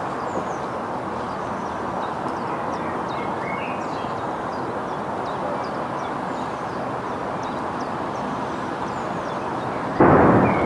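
Steady jet roar of an Airbus A330 on its takeoff run, with short high chirps over it. About ten seconds in, a sudden loud bang as the right engine fails, a turbine blade having come loose.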